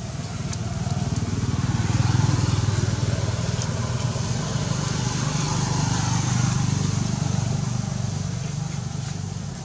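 Motor vehicle engine running with a low hum. It grows louder over the first two seconds, holds, then eases off near the end.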